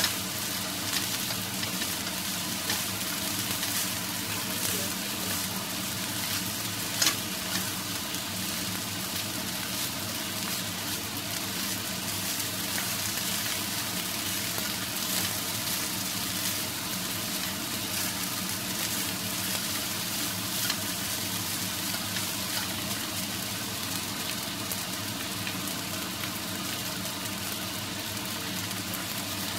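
Egg fried rice with bell peppers sizzling in a frying pan, stirred and tossed with two wooden spatulas. Scattered short knocks of the spatulas against the pan, the sharpest about seven seconds in.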